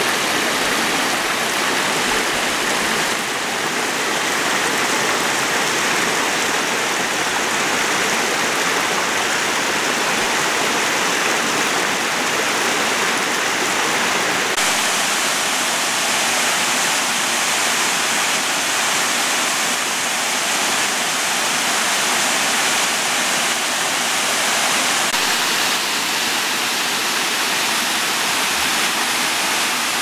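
Small cascading waterfall, shallow water rushing and splashing over rock ledges into a pool: a steady, even rush whose tone shifts slightly a few times.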